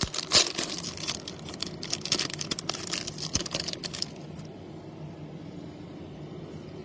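Trading cards and their foil pack being handled, crinkling and rustling for about four seconds before stopping abruptly. A steady low hum is left.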